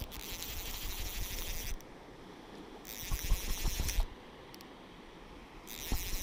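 Fly reel's click ratchet whirring in three spurts of a second or so as line is wound in, bringing a hooked trout to the landing net.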